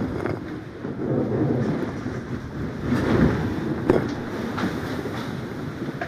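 Strong wind buffeting the microphone while seawater breaks over and sweeps across the deck of an ocean-racing yacht in heavy seas. The sound comes in surges, the loudest about a second in and about three seconds in, with a few sharp knocks of water and spray.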